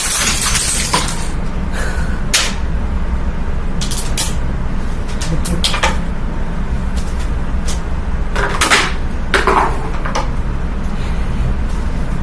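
Amazon Basics box fan running with a steady low hum, while Lego pieces dropped into it clatter against the spinning blades in irregular sharp clicks and knocks.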